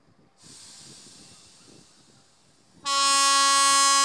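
A Sri Lanka Railways diesel train with a steady hiss, then one loud, steady blast of the locomotive's horn, about a second long, starting almost three seconds in.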